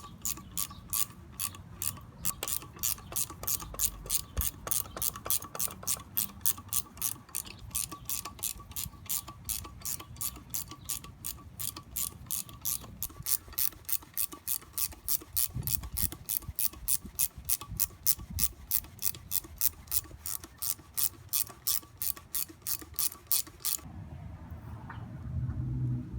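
Ratchet handle clicking in an even run of about three clicks a second as a thread-repair die is worked along a shock absorber's damaged 10 x 1.25 mm threads; the clicking stops a couple of seconds before the end.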